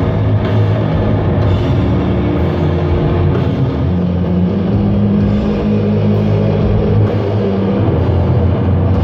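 Doom metal band playing live, loud: heavily distorted guitars and bass hold long, low notes over drums.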